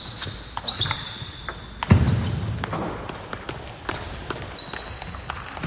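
Table tennis balls clicking on bats and tables, with short high squeaks like shoes on a sports hall floor early on and again about two seconds in. A louder burst about two seconds in stands out over the clicks.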